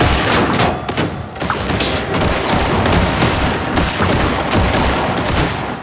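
Pistols firing in a rapid, continuous exchange of shots.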